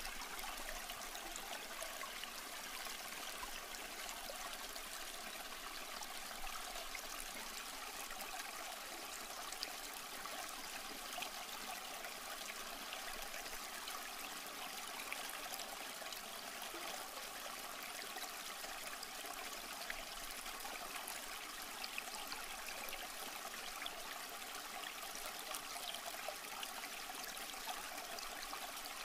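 Flowing water rushing steadily, an even running-water sound with small splashes and trickles through it.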